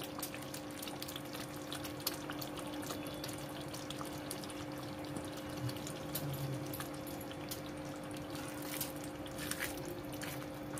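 Thick soya chunk curry gravy bubbling in a steel kadhai just after the gas is turned off, with many small pops and a soft hiss, over a steady low hum.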